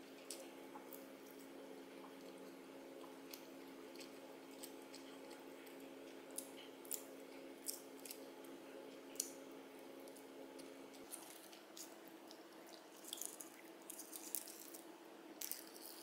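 Quiet eating sounds: a few sharp clicks of chopsticks and a wooden spoon against ceramic dishes, more frequent near the end, with soft chewing. Under them runs a low steady hum, part of which stops about two-thirds of the way through.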